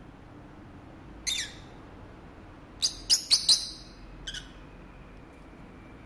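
Pet peach-faced lovebirds giving short, shrill chirps. There is one call about a second in, then a quick run of four loud chirps around the middle, and a last fainter one a second later.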